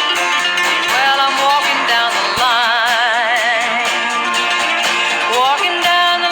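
Background music: acoustic guitar picked and strummed under a singing voice, which holds long notes with vibrato partway through.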